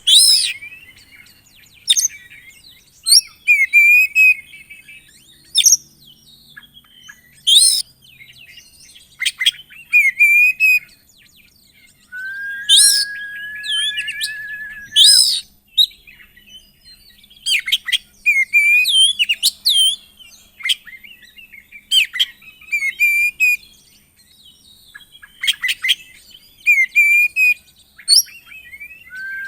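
Oriental magpie-robin singing a varied song of sharp whistled notes and short warbled trills, with one long held whistle about halfway through.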